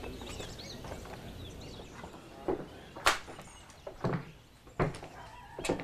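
Footsteps of several people walking up stairs and into a house: a few separate steps and knocks, one sharp knock about three seconds in. Birds chirp faintly in the background.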